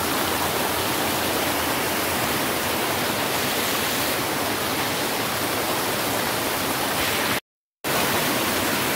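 Swollen creek in flood after heavy rain, rushing white water pouring down a narrow rock channel: a loud, steady rush. The sound drops out completely for about half a second near the end.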